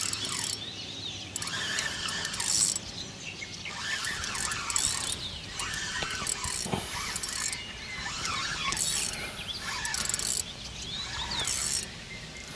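Spinning fishing reel being cranked in short bursts, its gears and ratchet whirring and clicking, while a heavy fish is reeled in on a feeder rod.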